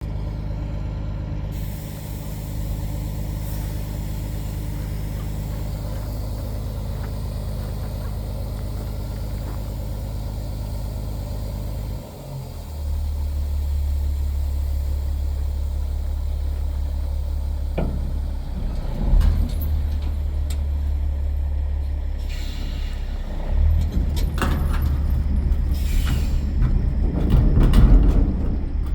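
Roll-off truck's engine running steadily. About twelve seconds in, the note drops briefly and gives way to a heavier, steady low drone as the bed is worked. From about eighteen seconds on come a series of metal clanks and bangs, growing louder toward the end, as the roll-off container is dropped off the bed without the winch.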